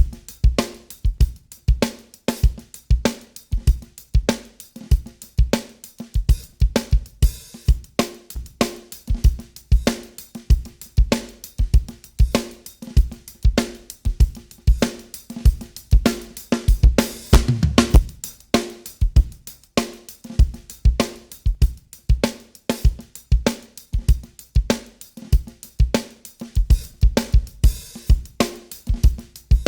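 A recorded drum kit groove of kick, snare, hi-hat and cymbals playing steadily, with a busier fill about seventeen seconds in. It runs through a TK Audio Transformer saturation unit with the second, even-harmonic saturation stage engaged and the gain pushed, which makes it a little more crunchy.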